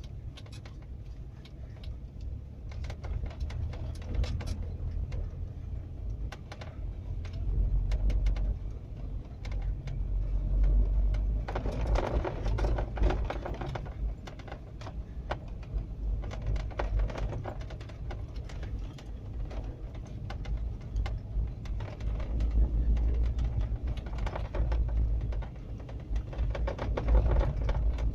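Dashboard of a 2016 UAZ Patriot knocking and rattling inside the cabin: many sharp, irregular clicks and knocks over a steady low road and engine rumble. It is a cacophony of knocks from loose trim in the front panel at 21,000 km.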